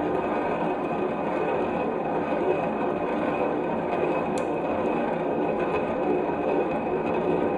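Marbles rolling steadily along a HABA wooden marble run's track and whirl slope, a continuous rolling rumble with a sharp click about four and a half seconds in.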